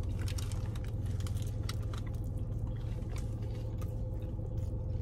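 A person chewing a mouthful of sub sandwich, with small wet clicks and smacks from the mouth. A steady low hum runs underneath from the car they are sitting in.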